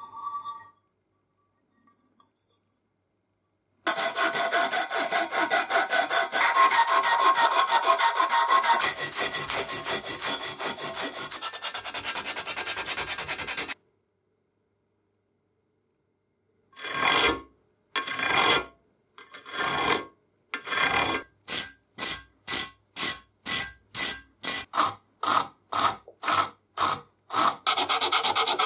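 Hand filing and sanding of the threaded metal neck of an oil can. First comes a long run of quick scraping strokes, then a break. After it come separate rubbing strokes, about two a second, running into continuous rubbing near the end.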